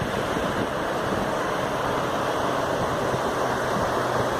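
Ocean surf on a beach: a steady, unbroken rush of waves, with a faint low steady hum beneath it.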